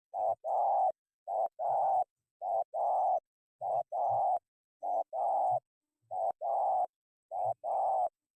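Spotted dove (tekukur) cooing in a steady repeated phrase, a short note followed by a longer one, about once every second and a bit, seven times; it stops abruptly near the end.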